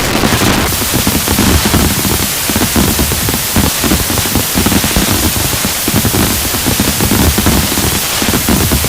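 Fireworks display: a dense, unbroken run of rapid pops and low thumps over a steady hiss.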